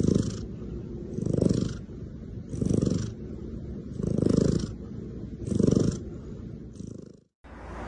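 Cat purring, the purr swelling and easing about every second and a half with its breathing, then cutting off abruptly near the end.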